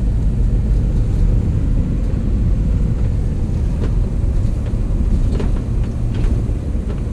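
Vehicle engine running with a steady low rumble, with a few faint clicks about four to six seconds in.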